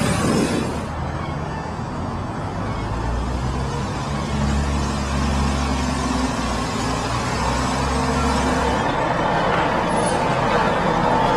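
Buses driving through a city street: a steady low diesel engine hum with road noise, growing gradually louder near the end as an intercity coach turns past.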